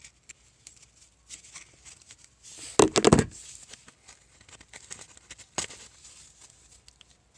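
Homemade paper pull-station props being handled: light paper rustling and tapping, with a loud cluster of knocks and rattles about three seconds in and one sharp tick a little later.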